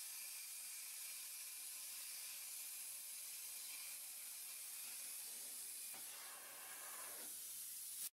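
Hypertherm Powermax45 plasma cutter cutting through a car's steel quarter panel: a steady hiss of the air-plasma arc, with a brief falling sound near the end.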